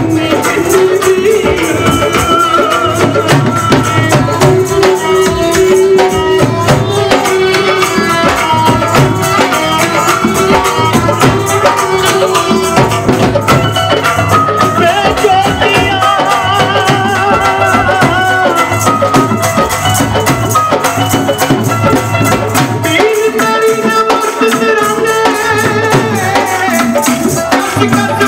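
Live Punjabi folk music for boliyan: a male voice singing through a microphone over a dhol drum beat, a bowed sarangi and jingling rattle-like percussion. The drum's low beat drops away near the end.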